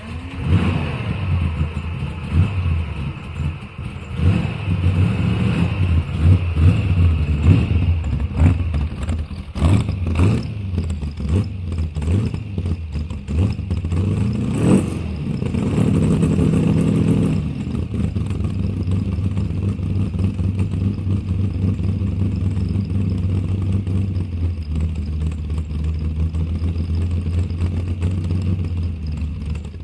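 Motorcycle engines running as a group of motorcycles rides along, a loud steady low drone. Many short, irregular thumps sound over it in the first half; about halfway through an engine revs up, and the rest is an even, steady drone.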